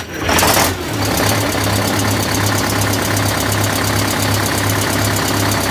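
Detroit Diesel 8V71 two-stroke V8 diesel in a 1968 MCI 5A coach starting from cold: it catches abruptly with a brief loud flare, then settles into a steady, evenly pulsing idle.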